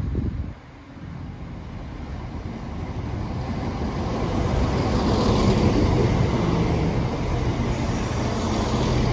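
Chiltern Railways diesel train passing along the platform: engine and wheel rumble grow louder over the first few seconds as it approaches, then hold steady as the coaches run by, with a hiss about five seconds in as the front passes.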